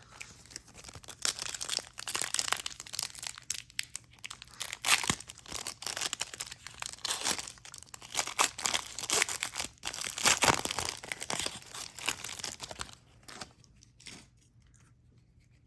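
An Upper Deck Marvel Annual trading card pack wrapper being torn open and crinkled, a long run of crackly rustling that dies away about two seconds before the end.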